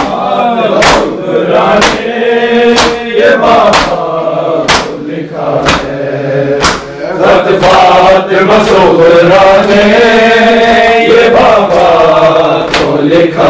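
Men chanting an Urdu noha together, with sharp rhythmic matam strikes, hands beaten on bare chests, about once a second. The strikes drop out for several seconds while the chanting carries on, and return near the end.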